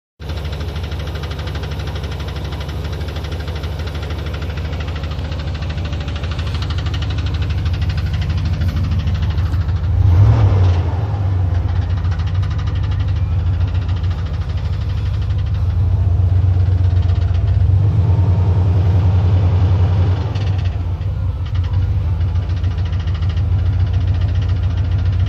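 1990 GMC Sierra pickup's engine running with a ticking, clunking noise, revved up briefly about ten seconds in. The owner traces the noise to the starter.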